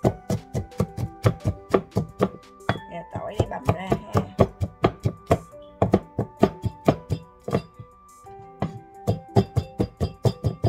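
Cleaver mincing peeled garlic cloves on a round wooden chopping board: quick knocks about four a second, with a short pause about eight seconds in. Background music plays underneath.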